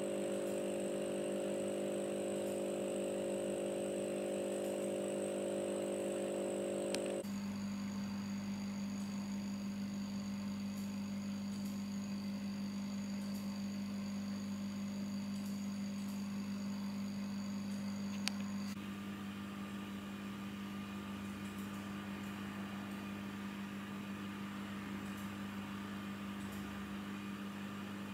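Aquarium diaphragm air pumps running at their medium setting, one after another. First the two-outlet Aqua One Precision 9500 hums steadily. About seven seconds in, the sound switches to the four-outlet Aqua One Precision 12000, a slightly quieter steady hum. About nineteen seconds in, it switches to the Hailea ACO-9610, the quietest of the three.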